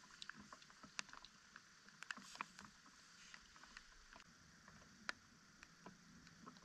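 Near silence, with faint, scattered short clicks and ticks.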